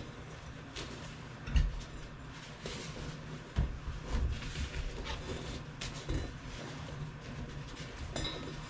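Handling noises as a motorcycle inner tube, just pulled from the tire, and the wheel are moved about: rubber rubbing and scattered knocks, with two dull thumps about one and a half and three and a half seconds in.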